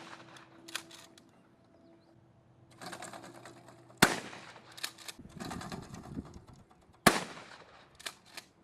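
Gunshots at a shooting range: two loud single shots about three seconds apart, each ringing out briefly, with a few fainter pops in between.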